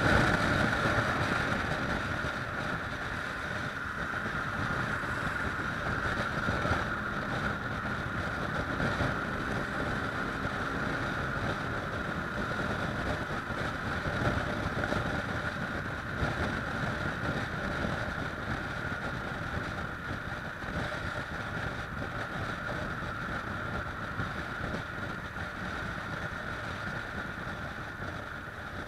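Kawasaki ER-6f parallel-twin motorcycle riding at a steady speed: wind rushing over the action camera's microphone, mixed with engine and road noise. It is a little louder in the first couple of seconds.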